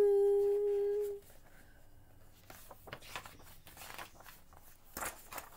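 A girl's voice holds the last sung note of a line for about a second, then soft rustling and crackling of paper pages being handled and turned, with a louder rustle near the end.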